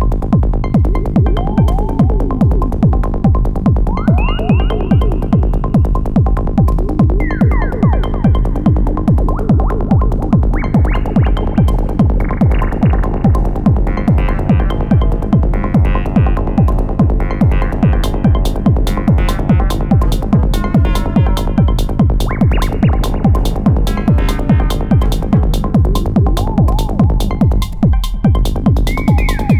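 Elektron Model:Cycles groovebox playing a hypnotic psy-techno pattern: a fast, steady rolling bass pulse and kick under gliding synth sweeps. The low end drops out briefly near the end before the groove returns.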